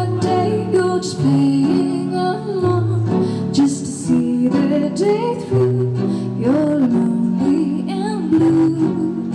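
Female vocalist singing a slow ballad live into a handheld microphone, with drawn-out notes that glide in pitch, over an instrumental backing.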